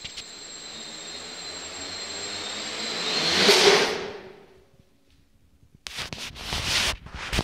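S500 quadcopter's brushless motors and propellers spinning up for a lift-off attempt that fails: a whooshing noise with a high steady whine swells over about three and a half seconds, then cuts off about four seconds in. After a short quiet, a run of clattering knocks and rustles near the end.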